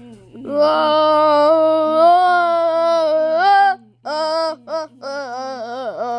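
A young person singing without words: a long wavering note held for about three seconds, then a run of short notes, with a sudden dip in pitch near the end.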